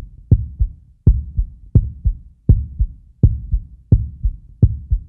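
A heartbeat sound effect: deep double thumps, lub-dub, about 80 beats a minute, that stop suddenly at the end.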